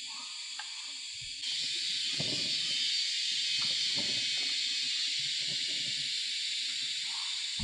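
Steady high hiss of forest ambience that gets louder about a second and a half in, with faint irregular rustling underneath.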